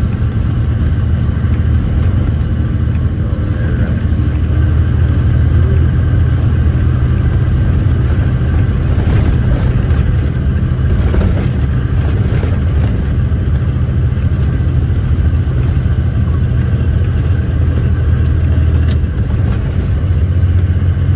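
Logging truck's diesel engine running steadily, heard from inside the cab, with a few faint knocks and rattles around the middle.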